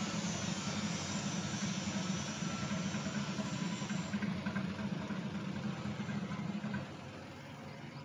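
Engine of construction machinery running steadily at idle, a continuous low rumble that becomes quieter about seven seconds in.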